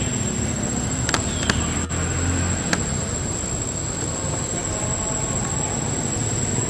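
Steady outdoor background noise with a constant high-pitched whine and a few sharp clicks between about one and three seconds in.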